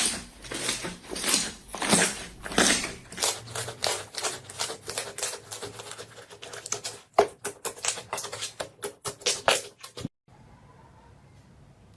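Slime being pressed and squished by hand, its trapped air pockets crackling and popping in rapid sharp clicks. At first the presses come about twice a second, then the popping turns into a dense crackle that cuts off suddenly about ten seconds in, leaving only a faint hum.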